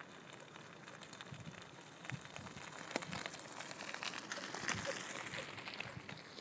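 Bicycle tyres crunching over a gravel track as a mountain bike passes close, growing louder to a peak around four to five seconds in, with scattered crunching steps of runners on the gravel.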